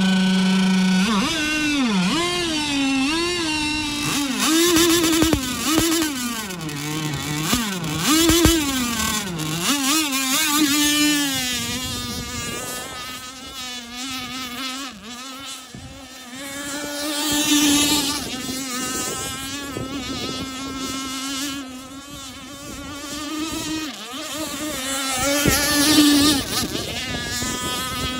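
Gas-powered RC race boat's two-stroke engine with tuned pipe: steady at first, then revving up and down from about a second in. It then runs at speed across the water as a high, buzzing whine whose pitch wavers as the boat turns and passes.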